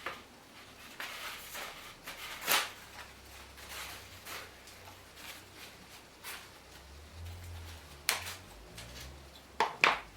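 A few sharp knocks and clicks of hard objects being handled and set down. The loudest comes about two and a half seconds in, with another about eight seconds in and a quick cluster near the end, over a faint low hum.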